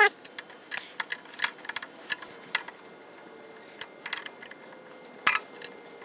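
Scattered light clicks and taps of small metal nuts being fitted by hand onto studs to fasten a wire guide strap in an inverter's terminal compartment, with a sharper click about five seconds in.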